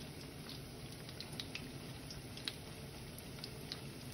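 Breaded oysters frying in hot oil in a skillet: a faint, steady sizzle with scattered small crackles and pops.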